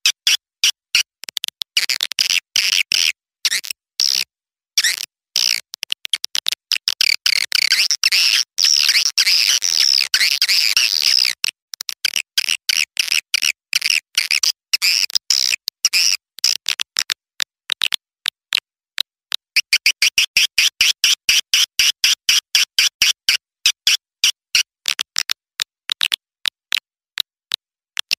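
Recorded lure call of young swiftlets: rapid high chirps and clicks, several a second, broken by short silent gaps. Two longer stretches of dense twittering come a few seconds in and again around twenty seconds in.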